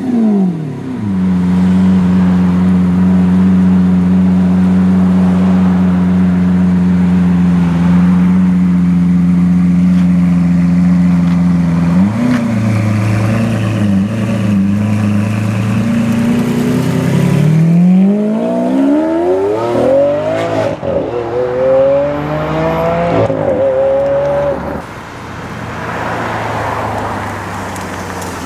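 Lamborghini Aventador Roadster's V12 idling steadily after its revs fall away at the start; the note shifts about twelve seconds in, then the engine revs up in two long rising pulls as the car accelerates away. A quieter car engine follows near the end.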